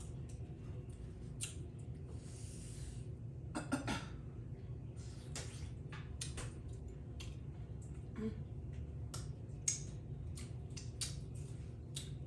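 A person eating close to the microphone: chewing and mouth sounds with many short sharp clicks scattered throughout, over a steady low hum.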